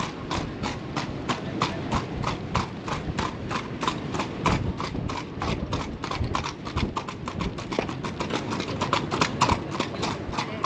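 Carriage horses' hooves clip-clopping in a quick, even rhythm, about five hoof strikes a second, over a steady low rumble.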